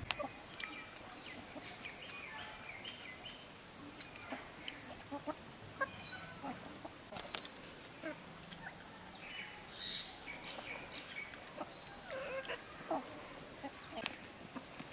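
Outdoor village ambience: scattered short bird chirps and occasional chicken clucks, with a few sharp clicks and a faint steady high-pitched tone throughout.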